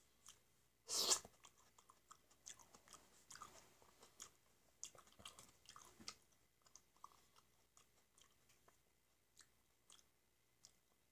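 Close-up chewing of a peeled black grape: one loud bite about a second in, then a stretch of chewing with many small mouth clicks, thinning to a few faint clicks in the second half.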